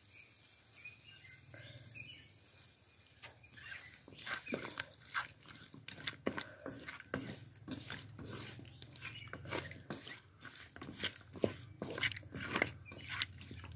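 A spatula scraping and knocking against an aluminium kadai as raw chicken pieces are stirred, with irregular sharp scrapes and clicks beginning about four seconds in.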